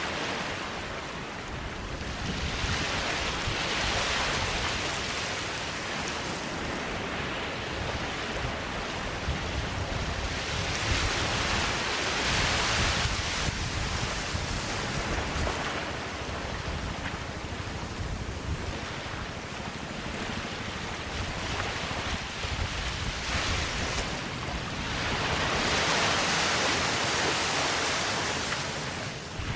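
Sea waves breaking and washing up on a sandy beach: a steady hiss of surf that swells three times as waves come in, over a constant low rumble.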